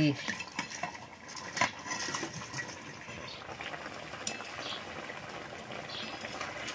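A pot of curry bubbling on the boil, with a few clinks of a metal utensil against the pot.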